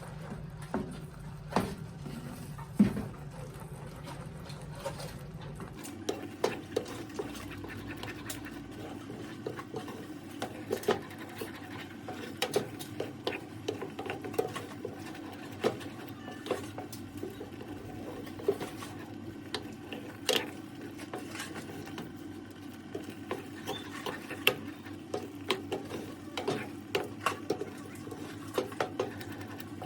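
A spoon stirring and scraping corn risotto in a pan, with many small clicks of the spoon against the pan over a steady low hum.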